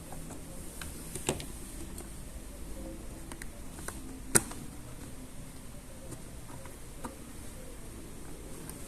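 Plastic toy pieces being handled: scattered light clicks and taps, with one sharp click a little past the middle, over a low background hum.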